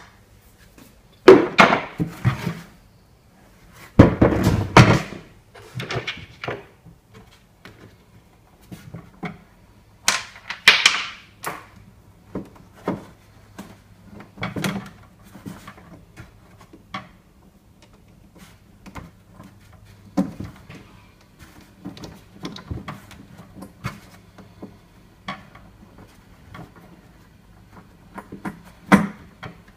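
Knocks, clicks and rubbing as a metal pipe fitting is worked into the top of a plastic marine fuel tank by hand, with a heavy thump about four seconds in and a sharp click near the end. A faint steady hum runs underneath.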